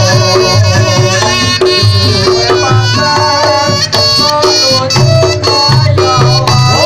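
Reog Ponorogo gamelan accompaniment: a wavering melody line played over steady, repeating drumming.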